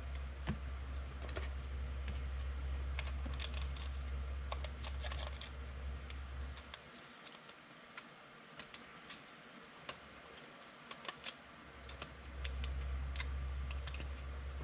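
Scattered, irregular light clicks and taps, over a low steady hum that cuts out about seven seconds in and comes back about twelve seconds in.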